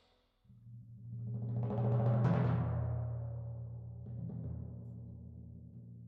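Wind band music: after a brief silence, a timpani roll swells in about half a second in, peaks around two seconds and slowly fades away.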